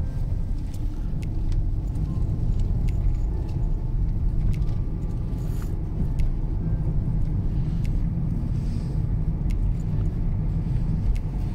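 Steady low rumble of a car driving along a concrete highway, heard from inside the cabin: engine and tyre noise.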